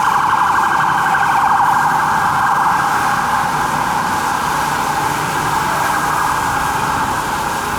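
Fire truck's electronic siren sounding a rapid yelp, fading slightly toward the end as it moves away, over engine and traffic rumble.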